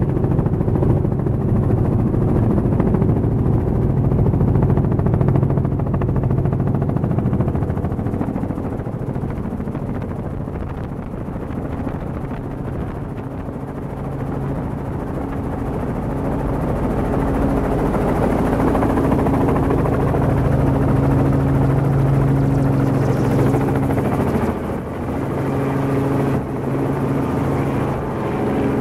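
Light helicopter's engine and rotor heard from inside the cabin, a steady drone with several low steady tones. It eases off around the middle and builds again as the helicopter comes down to land, briefly dropping near the end.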